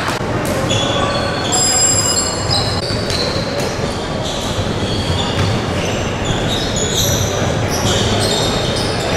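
Basketball play on an indoor court: many short, high sneaker squeaks on the floor and the thud of the ball bouncing, over the steady noise of the hall.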